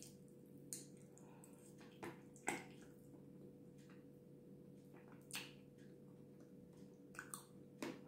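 Wet mouth sounds of a person eating a soft, creamy food by hand: a few short squishy smacks and lip clicks, the loudest about two and a half seconds in, over a faint steady hum.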